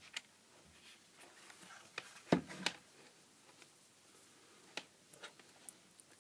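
Bench handling sounds: a multimeter set down with a couple of knocks about two seconds in, then light clicks and taps as its test probes are picked up and placed on a small lithium cell.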